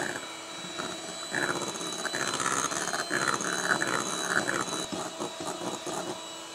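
Electric hand mixer running at high speed, its motor giving a steady whine while the beaters churn a thick cream cheese and whipped-topping filling. A rough, uneven churning sound rides over the motor through the middle.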